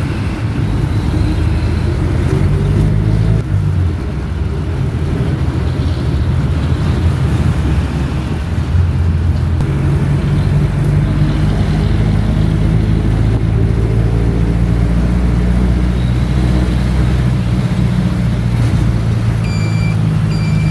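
Engine of a moving road vehicle running steadily with road noise, heard from inside the vehicle; a low hum that holds throughout.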